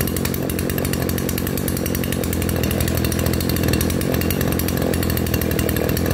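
Mitsubishi T180 brushcutter's 36 mm-bore two-stroke engine running steadily just after starting, with a crisp, sharp firing note.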